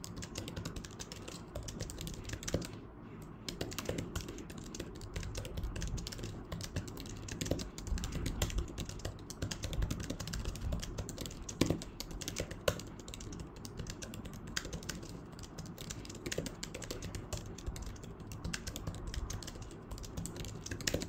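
Typing on a physical keyboard attached to a tablet: a continuous quick run of key clicks, with a few louder taps.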